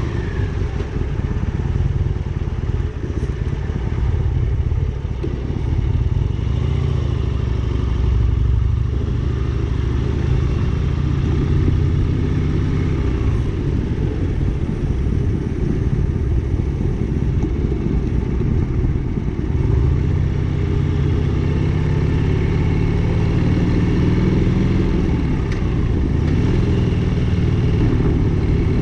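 Motorcycle engine running under way, its pitch rising and falling gently.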